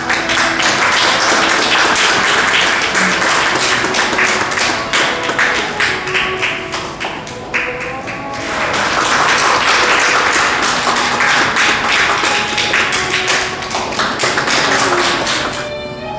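Music playing with loud, dense rhythmic handclapping over it; the clapping breaks off briefly about halfway through and stops near the end.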